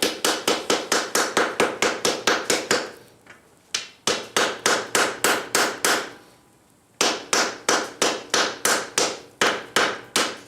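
Rapid, even hammer blows on hot steel on an anvil, about four a second, each with a short ring, broken by two brief pauses about three and six seconds in. It is a blacksmith hammering a borax-fluxed fold to try to set a forge weld.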